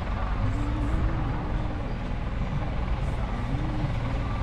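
Engine of a heavy earth-moving machine running steadily at work, a low drone with two short swells in pitch.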